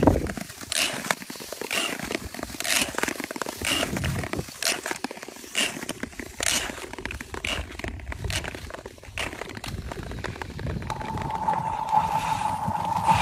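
Thin black ice ringing under ice skates: each stroke sets off a short, high-pitched ringing chirp through the ice sheet, about one a second. Thinner ice gives a higher pitch. Near the end a steady ringing tone sounds through the ice.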